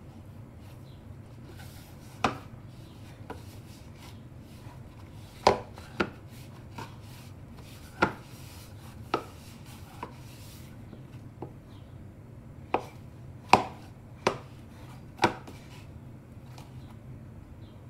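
Knuckles and palm kneading stiff, crumbly samosa dough in a plastic mixing bowl, giving about ten sharp, irregularly spaced knocks over a steady low hum.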